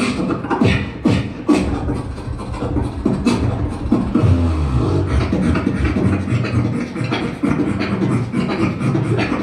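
Solo human beatboxing: sharp mouth-made snare and hi-hat hits over a deep hummed bass line that swells about four seconds in.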